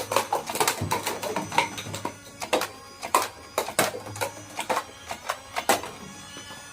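Toy gun firing: rapid mechanical clicking with a run of sharp snaps. The snaps come thick at first and grow sparser toward the end.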